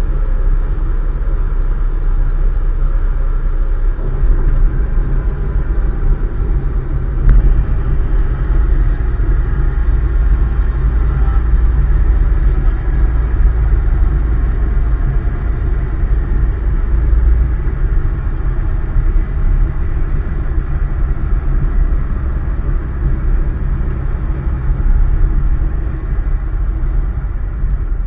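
Cessna 152's Lycoming O-235 engine running at idle, heard from inside the cockpit, with the low rumble of the wheels rolling on the runway after touchdown. A single click about seven seconds in, and the sound fades near the end.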